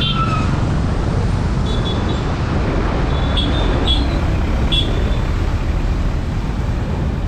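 Street traffic noise: a steady, loud rumble of vehicles, with a few short high-pitched squeaks or chirps between about two and five seconds in.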